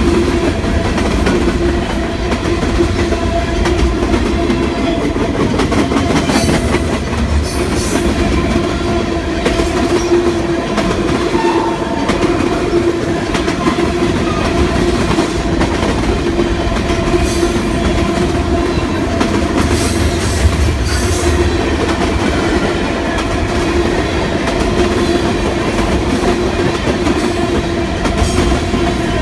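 Freight train of covered hoppers and boxcars rolling past close by: a steady rumble and clatter of steel wheels on the rails, with a steady droning tone running through it.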